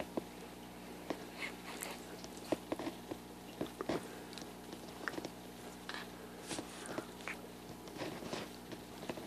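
Small dogs play-fighting, mouthing and nipping at each other: irregular jaw snaps, clicks and rustling, a few each second, over a steady faint hum.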